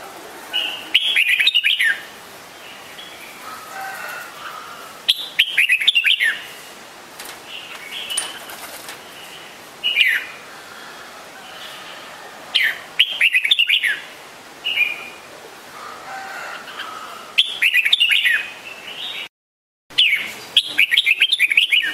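Red-whiskered bulbul singing: five short, loud, chirpy phrases of quick sliding notes come a few seconds apart, with softer calls between them.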